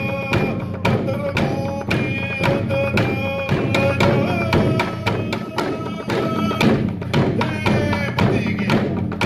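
Traditional island dance song: voices singing together over a steady drumbeat.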